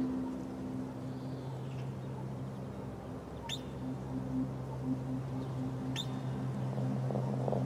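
A low steady drone with two short, high bird chirps about two and a half seconds apart.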